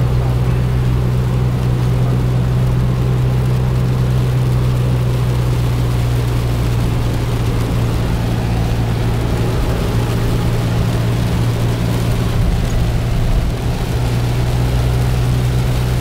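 Steady low drone of a vehicle driving in rain, heard from inside the cab: engine and road hum with an even hiss of rain and tyres on the wet road.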